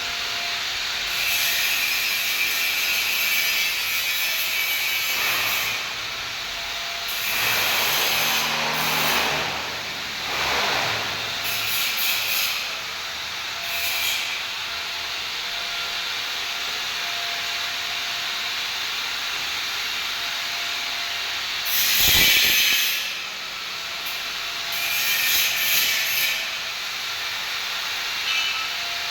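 Electric arc welding: a crackling hiss that starts and stops in runs of one to several seconds, the arc struck and broken again and again, with a louder burst and a low thud about two-thirds of the way through.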